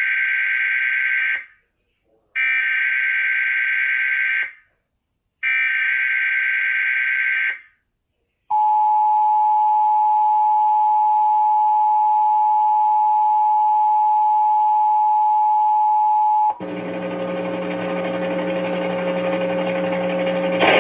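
NOAA Weather Radio EAS alert on a weather-radio receiver: three bursts of warbling digital SAME header data, each about two seconds long with short gaps, then the steady 1050 Hz weather-radio warning alarm tone for about eight seconds. The alert is the start of a test tornado warning. The tone then cuts off suddenly, and a steady buzzing hum with several fixed tones follows for the last few seconds.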